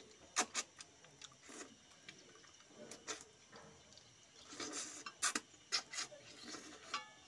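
Close-up eating sounds of a person eating fish curry and rice by hand: lip smacks, chewing and sucking at the fingers, heard as an irregular scatter of short wet clicks that come thickest about five to six seconds in.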